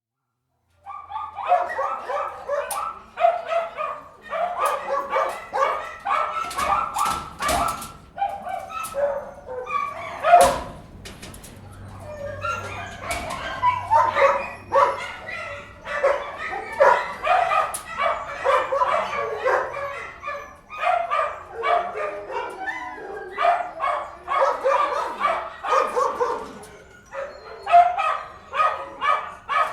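Several dogs barking aggressively and continuously, rapid overlapping barks with occasional higher yips, starting about a second in.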